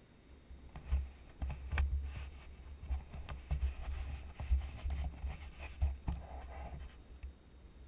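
Muffled low rumble with irregular knocks and bumps, heard through a helmet-mounted camera as a dirt bike moves over a rough, steep dirt slope. It starts about a second in and dies away near the end.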